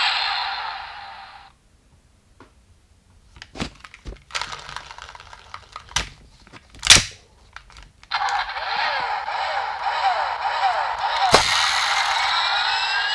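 A Bandai DX Accellular flip-phone morpher toy: its electronic sound effect fades out, then comes a few seconds of plastic clicks and clacks as the toy is spun in the hand and flipped open, the loudest snap about seven seconds in. About eight seconds in the toy's electronic transformation sound starts up, a busy run of synthesized tones and falling chirps with a sharp hit about eleven seconds in, and its 'Accelerate!' call.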